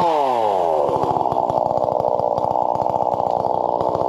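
Two-stroke chainsaw engine running at high revs, its pitch falling as the throttle is let off, then settling about a second in to a steady, fast-pulsing run.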